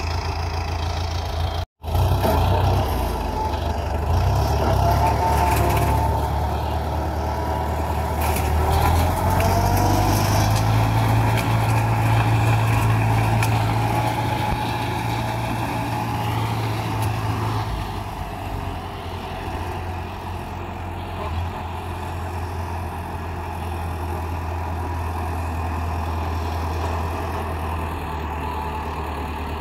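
Universal 640V tractor's diesel engine running steadily while powering a flail mower, with a wavering higher whine over it in the first half. The engine note eases a little about two-thirds of the way through.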